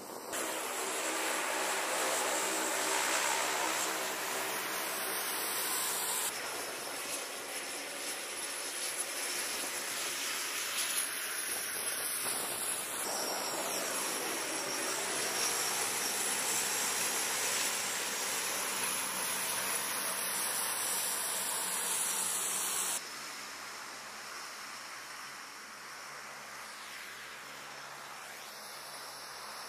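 C-130 Hercules four-engine turboprop taxiing close by: a steady propeller drone with a high turbine whine whose pitch slowly shifts as the aircraft moves. About two-thirds of the way in the engine sound cuts off suddenly, leaving a quieter, even hiss.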